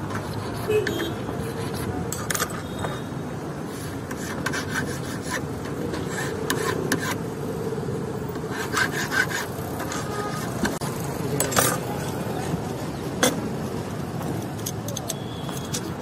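Metal key blank being cut by hand with small steel files and chisels: scattered short scrapes and sharp clicks of tool on metal, in irregular bunches, over a steady hum of road traffic.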